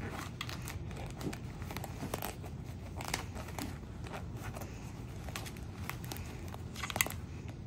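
Rustling and crinkling of a MOPP chemical protective suit's jacket and hood as it is pulled up over a gas mask and adjusted at the neck, in short irregular scrapes, with a sharper click about seven seconds in.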